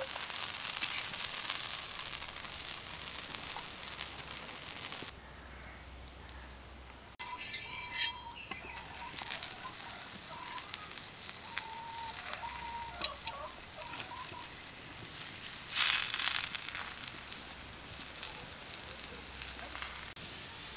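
Oil sizzling and crackling on a hot tawa as potato-stuffed wheat-flour flatbreads shallow-fry, with scattered sharp clicks and a louder cluster of them a little past the middle.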